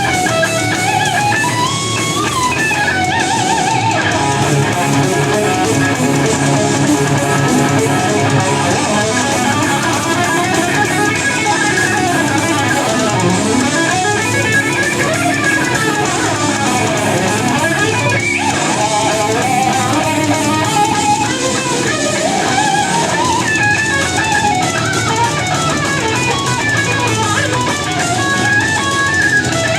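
Electric guitar playing fast lead lines that run up and down the neck in sweeping melodic passages, over a steady accompaniment with bass, in a heavy-metal style.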